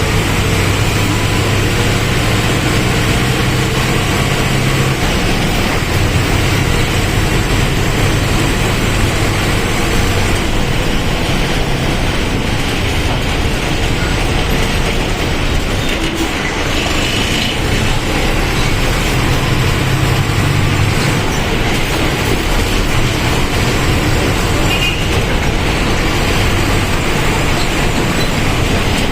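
Mercedes-Benz OF1722M bus's diesel engine running under way, over steady road and body rumble. The engine note is strong at first, drops back in the middle, and rises again a little after halfway.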